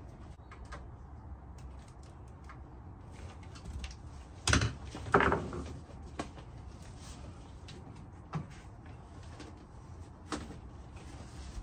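Heavy canvas boat cover being handled and its fasteners pressed home: light rustling and scattered small clicks, with two louder knocks about four and a half and five seconds in.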